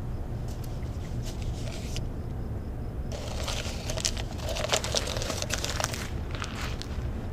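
A paper cup being handled in the hands, crinkling and rustling with many small sharp clicks for about three seconds, starting about three seconds in. A steady low rumble runs underneath.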